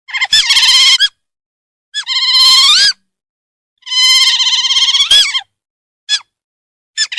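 Animal calls: three long, wavering, high-pitched calls, each about a second long, with short sharp peeps between them.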